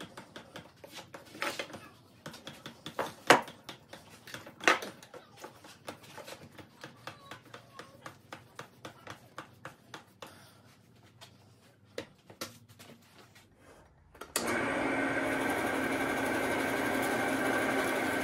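Light clicking and knocking as a wooden twin-screw vise's acme threaded rods are turned by hand, with a few louder knocks in the first five seconds. About fourteen seconds in, a Delta drill press starts and runs steadily with a hum.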